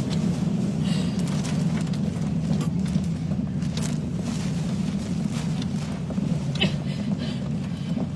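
Steady low rumble of high tornado winds and vehicle noise heard inside a pickup truck's cab, with scattered sharp ticks and knocks.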